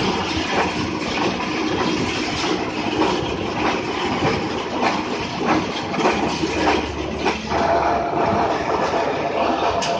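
Steel bar-roller machine running, with a steady mechanical rattle and irregular metal clanks; a steady hum joins about seven and a half seconds in.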